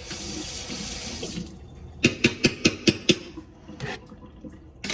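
Running water hissing for about a second and a half, then a quick run of about six clinks of a metal utensil against a dish.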